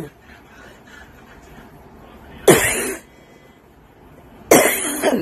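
A woman's dry cough: two coughs with a sudden start, about two seconds apart, the second slightly longer. She calls it an allergic cough.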